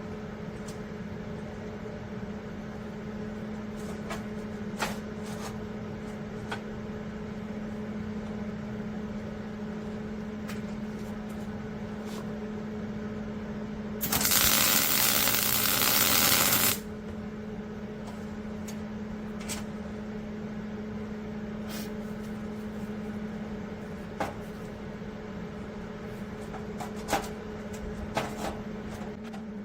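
An electric welding arc crackling and hissing in one burst of about three seconds, a weld on steel rebar. Under it a steady hum, with a few sharp clicks of metal being handled.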